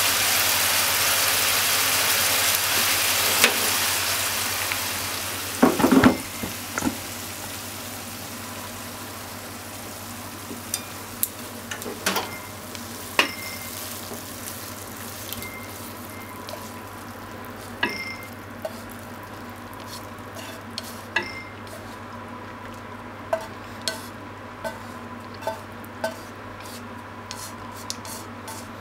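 Pork and onion stir-fry sizzling in a frying pan; the sizzle dies away after about four seconds. A loud clatter of the pan about six seconds in, then scattered clinks and scrapes of a spatula against the pan and a ceramic bowl as the food is served.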